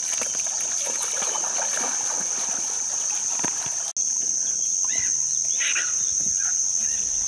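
Insects singing in a steady, continuous high-pitched drone, with faint rustling and splashing in the first few seconds.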